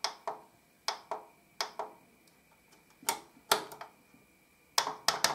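About a dozen sharp clicks and taps at irregular spacing, some in quick pairs, from a hand working the front controls of an opened Pioneer VSX-D2011 receiver. The receiver does not respond: the AC connector to its standby power supply board has been left unplugged.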